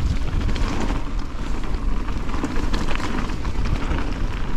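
Mountain bike rolling fast down a dirt trail: wind noise on the microphone with tyres running over stones and dry leaves, and many small clicks and rattles from the bike.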